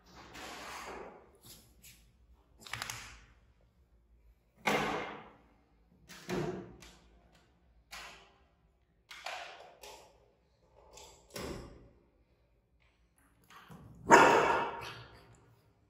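A run of about nine short, noisy bursts from a puppy and two baby monkeys playing and scuffling on a tile floor, the loudest near the end as the puppy jumps at the monkeys.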